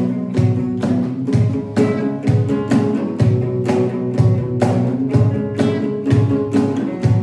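Music: a steady beat of about two percussive hits a second, with low thumps, under sustained string-like notes.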